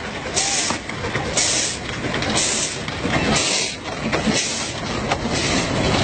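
Narrow-gauge steam locomotive moving off slowly, its exhaust chuffing in hissing blasts about once a second over the rumble of the train.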